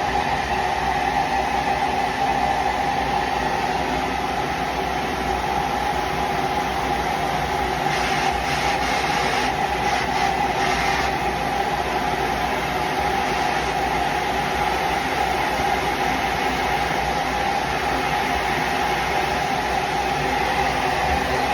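Oxy-acetylene torch flame burning with a steady hiss and a constant tone, the hiss turning brighter for a few seconds about eight seconds in.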